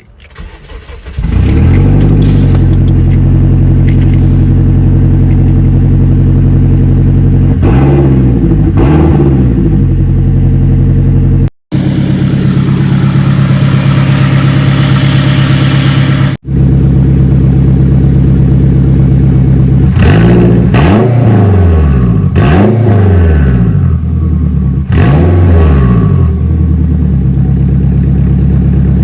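Turbocharged Acura RSX four-cylinder engine, its turbo freshly rebuilt, running steadily with throttle blips that rise and fall in pitch, twice about eight seconds in and several times in quick succession later on. The sound drops out briefly twice where clips are cut together.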